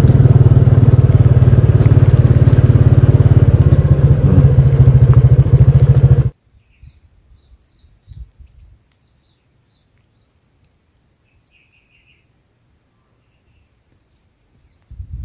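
A motorcycle engine running steadily, cut off abruptly about six seconds in. Then comes a quiet stretch with a faint steady high insect trill and a few small bird chirps.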